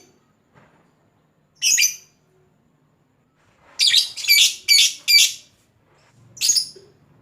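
Lovebird giving short, harsh, shrill shrieks: one, then a quick run of four, then one more, the calls of a fighter lovebird used as a bait sound to set other lovebirds calling.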